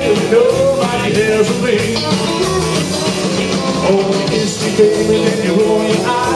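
Live rock and roll band playing, with electric guitars, electric bass and a drum kit.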